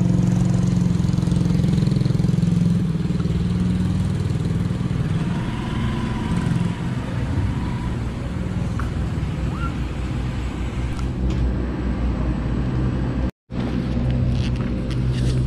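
A vehicle engine running steadily at idle, a constant low hum. The sound cuts out for an instant near the end.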